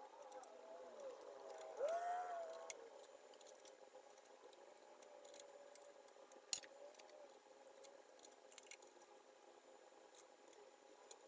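Faint clicks and light metal clinks as the spindle feed assembly is handled and fitted back into the cast-iron head of an Atlas 73 drill press, with one sharp click about six and a half seconds in. A short wavering pitched sound rises and falls about two seconds in.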